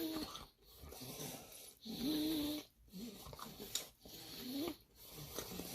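A person chewing food close to the microphone, with mouth noises, breathing through the nose and short voiced hums, in bursts about a second apart.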